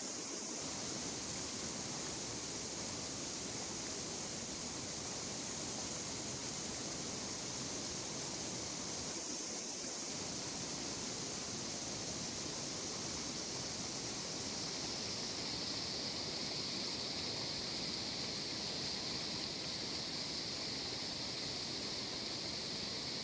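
Steady rushing of flowing river water, an even hiss that never lets up.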